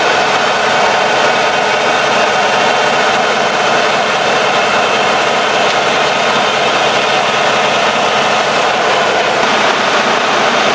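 Volvo D13 inline-six diesel engine of a semi truck idling steadily while it warms up after sitting for several days, with a steady rushing hiss over the idle.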